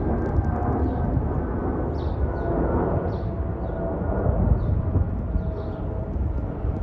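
Rolls-Royce Trent XWB engines of a Delta Airbus A350-900 climbing away overhead: a steady, deep jet rumble. Faint whining tones fade out in the first few seconds and the rumble slowly drops as the airliner recedes. Birds chirp at high pitch over it.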